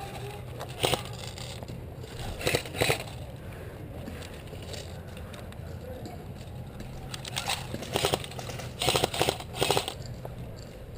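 Airsoft guns firing in short bursts of rapid clicking shots. There are several bursts, the densest just before the end.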